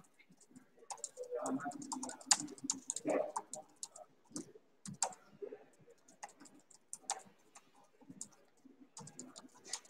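Typing and clicking on a laptop keyboard, with irregular runs of keystrokes.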